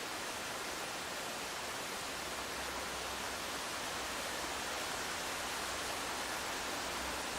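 Steady, even hiss of outdoor ambient noise from a wildlife camera's microphone, with no howling.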